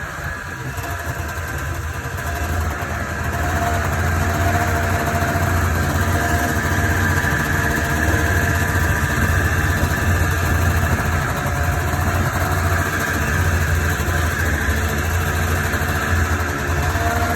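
Two-stroke engine of a vintage Ski-Doo RV Blizzard snowmobile running steadily at low revs, getting a little louder a few seconds in, then holding even.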